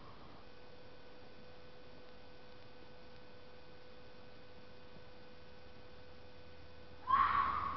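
A faint steady hum with a thin held tone over low hiss, then near the end one sudden loud scream of a wild animal at night, which the uploader takes for a red fox rather than a fisher.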